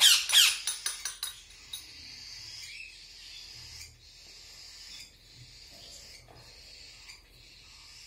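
Baby cockatiels begging: a few shrill, steeply falling calls in the first second, then a steady raspy hissing that pulses about once a second.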